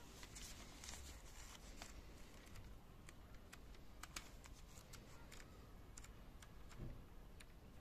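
Faint crinkling and ticking of paper pages being leafed through and handled, a scatter of small irregular clicks.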